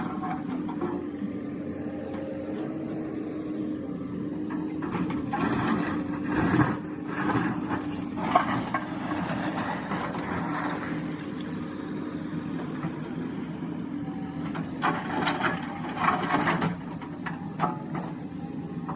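JCB 3DX backhoe loader's diesel engine running steadily, with scattered knocks and rattles from the machine.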